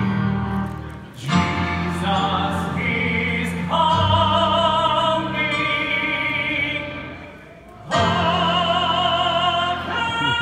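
Male voices singing long held notes with wide vibrato, accompanied on a Roland FP-50 digital piano. The singing breaks briefly about a second in and again just before eight seconds.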